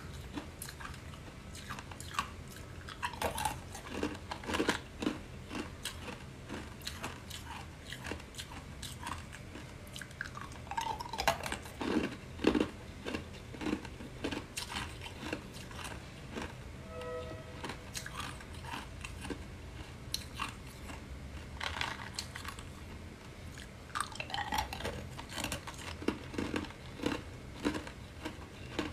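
Clear ice cubes being bitten and crunched between the teeth, a run of sharp irregular cracks in clusters with quieter chewing in between.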